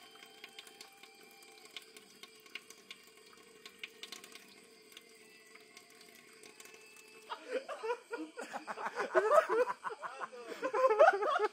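Faint steady rush of running water, then about seven seconds in, loud voices laughing and calling out.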